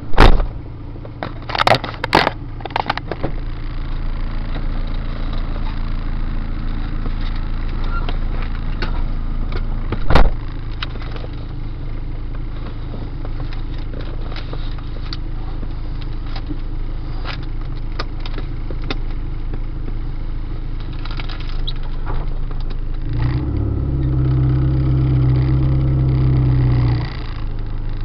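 A car driving, with steady engine and road noise and a few sharp knocks, loudest near the start and at about ten seconds. Near the end a louder low droning hum with overtones comes in for about four seconds and cuts off suddenly: the extraneous noise that comes from the car under braking.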